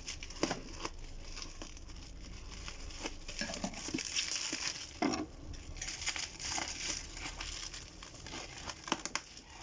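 Plastic parcel packaging crinkling and rustling as it is handled and worked open, with scattered small clicks and taps.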